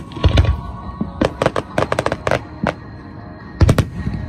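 Aerial fireworks going off over music: a heavy bang just after the start, then a quick string of sharp reports and crackles, and another heavy bang near the end.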